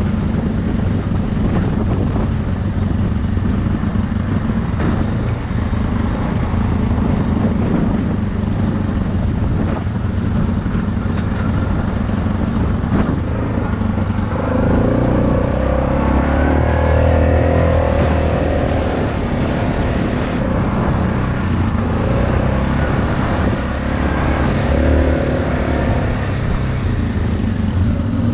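Dirt bike engine running at riding speed, its note changing and growing stronger about halfway through.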